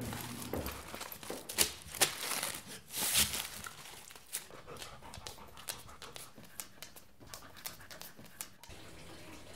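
Large dog panting as it walks, with many light clicks from its claws on a wooden floor.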